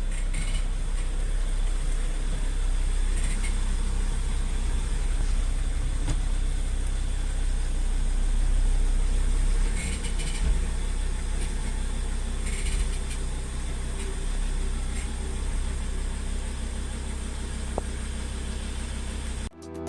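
Mercedes E270 car running, a steady low rumble, with faint short higher-pitched noises every few seconds. The owner hears obvious noises from the brakes when they are applied, even though the pads have plenty of material left.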